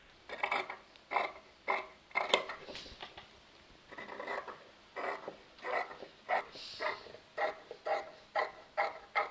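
Dressmaking scissors cutting through fabric in a run of short snips, coming about two a second in the second half.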